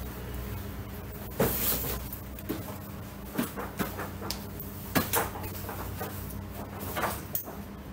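Handling noises: scattered short clicks and knocks, about a dozen, irregularly spaced, as a small object is worked with the hands at a table, over a faint steady hum.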